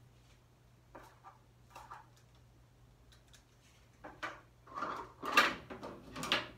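Kitchen prep handling: a few faint knife clicks on the table, then from about four seconds in louder rustling and clattering as plastic bowls and cut herbs are moved around.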